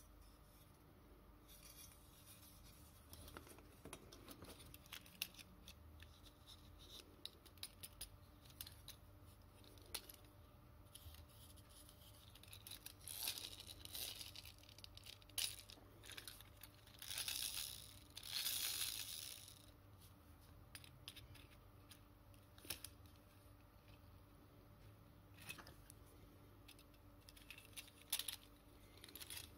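Small metal clicks and scrapes of a tin toy car being handled and taken apart by hand, with a few longer scraping rasps in the middle, the longest about two seconds.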